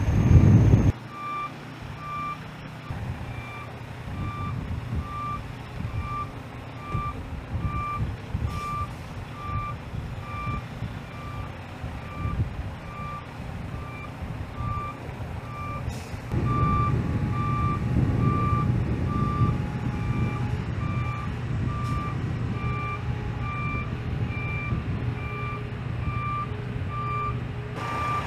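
Heavy truck's backup alarm beeping steadily at one pitch, about once a second, a sign that the truck is reversing, over the low running of its diesel engine. The engine grows louder about halfway through. A brief loud rumble in the first second cuts off abruptly.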